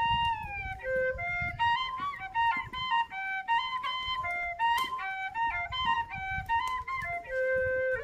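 Background music: a flute playing a melody of short held notes that step up and down.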